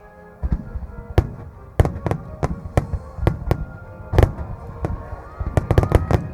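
Aerial fireworks shells bursting, sharp booms at uneven intervals that come thick and fast near the end, over music played on loudspeakers.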